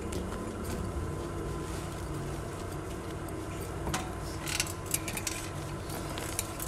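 Steady mechanical hum of a cricket bowling machine running, with a single sharp knock about four seconds in and a few faint clicks after it.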